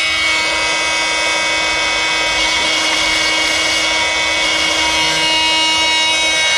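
Makita cordless oscillating multi-tool running steadily at one pitch, its plunge blade cutting around the edge of a mortise in a wooden plank.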